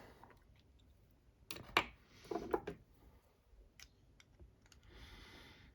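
Small metallic clicks and taps from an Assa 600 lock cylinder being handled and tried for disassembly. There is a cluster of sharp clicks and a brief scrape about a second and a half to two and a half seconds in, then a few faint ticks and a soft rustle near the end.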